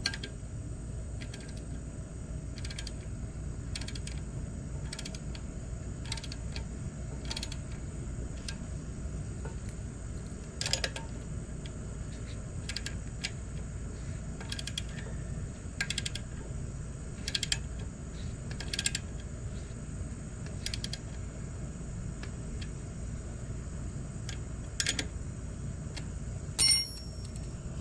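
Wrench working the motor-mount bolts of an 80cc two-stroke bicycle engine as they are tightened: scattered single sharp metallic clicks, about one every second or two, with a louder ringing clink near the end, over a steady low hum.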